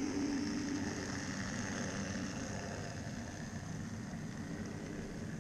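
Pair of Minitrix N-scale V160 diesel locomotives hauling freight wagons past close by: a steady rolling rumble of small wheels on track with motor hum, loudest at the start and easing slightly.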